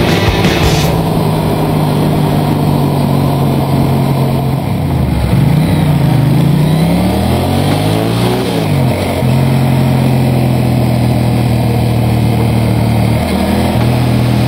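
Motorcycle engine running at a steady road speed, with wind noise. About five seconds in, the engine note falls, climbs again and settles back to a steady pitch a few seconds later.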